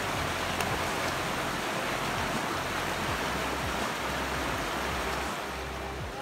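River rapids rushing: whitewater pouring and breaking over rocks in a steady rush, easing slightly near the end.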